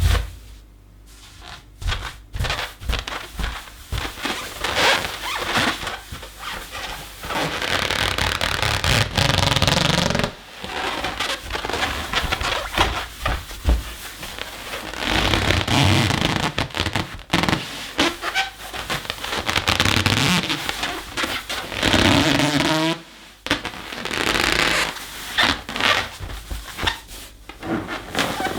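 Inflated latex balloon being rubbed and squeezed, squeaking and scraping in irregular stretches with short pauses between them.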